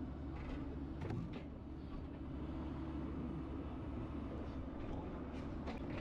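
Cat mini excavator's diesel engine running steadily, with a few light knocks about a second in and again near the end.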